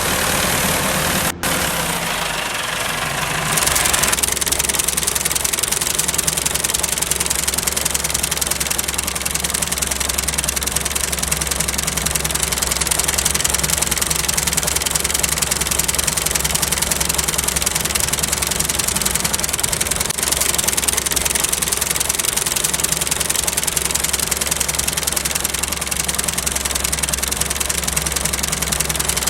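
A small engine running steadily with a fast, even knocking pulse, settling into an even run about four seconds in.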